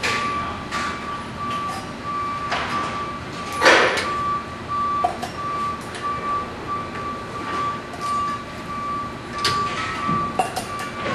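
Metal clinks and short hissing bursts as cylinder valve connections are worked on a gas cylinder fill manifold, the loudest burst about four seconds in. Under it runs steady industrial background noise and a repeating high beep.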